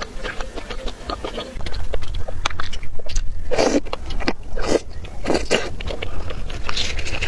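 Close-miked eating of spicy stir-fried food: a run of crisp crunching clicks from biting and chewing, with a few louder, fuller mouth sounds near the middle. A low hum comes in about one and a half seconds in.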